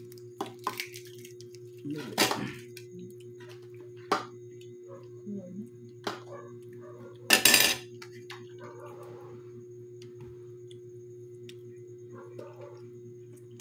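Metal spoons clinking and scraping on ceramic bowls and plates: scattered sharp clicks, with a louder clatter about two seconds in and the loudest about halfway through, over a steady hum.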